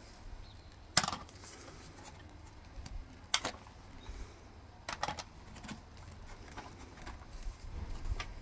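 Sharp plastic clicks and knocks, a few seconds apart, as the handle tube of a Tineco Floor One S5 cordless wet-dry vacuum is fitted and clicked into the machine's body. The vacuum is not running.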